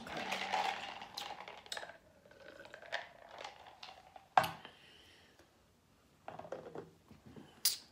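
Clicks, taps and rustling from takeout containers and food wrapping being handled, with one sharp knock about four and a half seconds in.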